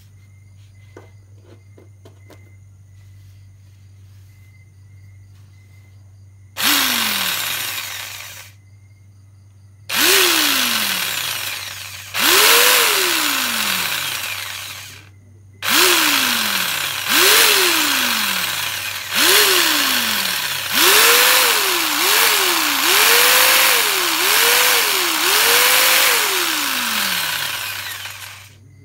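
Makita corded jigsaw run without cutting, powered from a solar inverter's outlet. Its motor whines up and winds down in six short trigger pulls. Then it runs for about eight seconds, its speed dipping and rising five times as the trigger is eased and squeezed.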